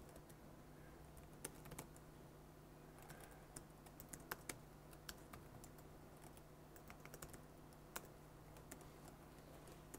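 Faint, irregular keystrokes on a computer keyboard as shell commands are typed, over a low steady hum.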